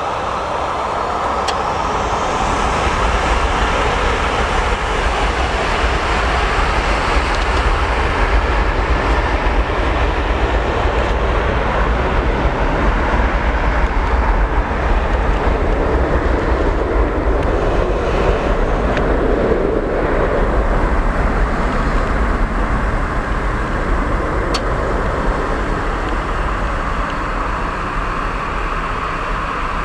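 Boeing 737-700's CFM56-7B turbofan engines at takeoff power: a whine rising about two seconds in, then a loud steady jet noise that builds and slowly eases as the aircraft rolls for takeoff.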